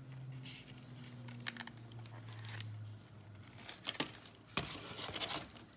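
Packaging crinkling and rustling in irregular bursts as a model locomotive is taken out of its wrapping, with a sharp click about four seconds in. A low steady hum sits underneath for the first half.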